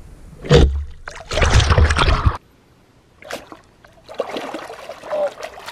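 Splashing in shallow water as a gig is jabbed down at a stingray. There is a sharp splash about half a second in, then a second of heavy splashing, then lighter splashing near the end.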